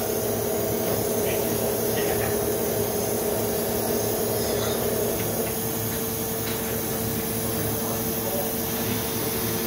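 Steady hum and hiss of a Finn-Power hydraulic CNC turret punch press running idle, with no punching strokes. Its hum shifts slightly in pitch about halfway through.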